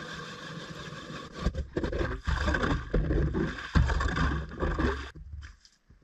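Hand-cranked ice auger grinding through lake ice in a steady scrape. From about a second and a half in it turns louder and rougher, with irregular scraping and knocking, then stops about five seconds in as the auger comes out of the hole.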